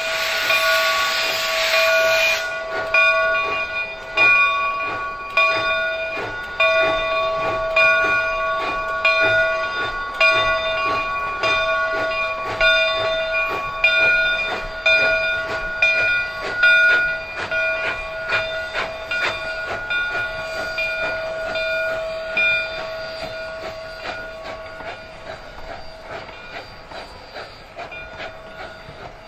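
Southern Railway 2-8-0 steam locomotive No. 401 starting off. Steam hisses from the open cylinder cocks for the first couple of seconds, then stops. Slow, regular exhaust chuffs follow, with a steady ringing tone running beneath them, and the sound fades as the train pulls away.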